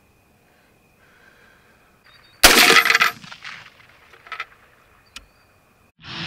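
A single rifle shot from an AR-style rifle, a sharp loud crack about two and a half seconds in with a short fading tail, followed by a few fainter clicks. Rock music starts right at the end.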